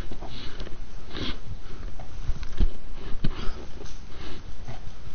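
Footsteps crunching through dry leaf litter, pine needles and twigs, with a person breathing hard close to the microphone: irregular rustling bursts about once a second and occasional dull thumps.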